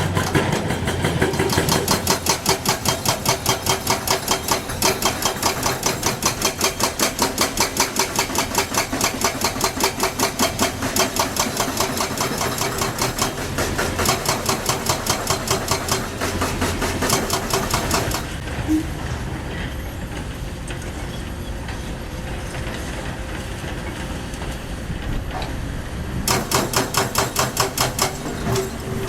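Excavator at work, with a rapid, even clatter of metal knocks, about five a second, over its diesel engine. The knocking stops about two-thirds of the way through, leaving the engine running, and starts again near the end.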